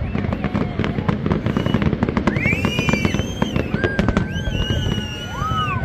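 Fireworks display: shells bursting and crackling in quick succession, a dense run of sharp pops. From about two seconds in, several high, drawn-out whistling tones join, each rising, holding and falling away.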